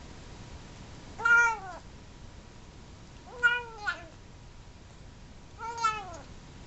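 Seal point Siamese kitten, eight weeks old, meowing between mouthfuls of food: three short meows about two seconds apart, with a brief extra one right after the second.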